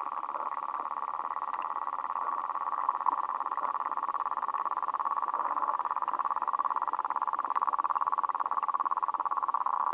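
Frogs calling in chorus: a steady, fast-pulsing trill that grows slightly louder toward the end.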